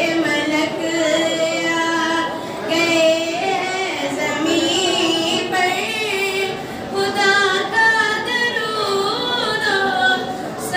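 A female voice singing a naat unaccompanied, in long held notes that bend and waver from pitch to pitch.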